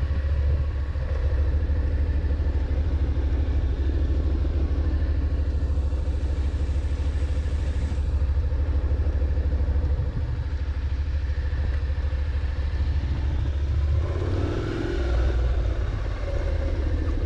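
Motorcycle engine running as the bike is ridden at low speed, with a steady low rumble.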